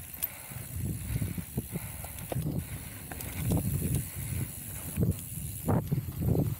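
Mountain bike riding along a trail: uneven low rumbling that surges every half second or so, with a few sharp clicks and knocks.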